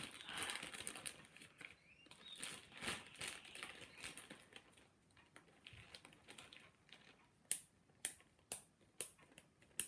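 Plastic zip-lock freezer bag crinkling as it is handled. Near the end the zip seal is pressed shut with a run of about six sharp clicks, roughly two a second.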